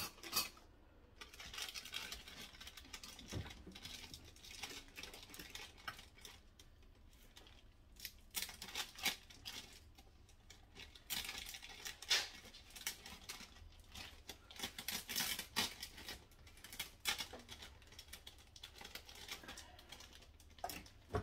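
Small potatoes being handled and tipped out for rinsing: irregular light knocks and clicks, with bursts of rustling like a plastic bag, scattered throughout.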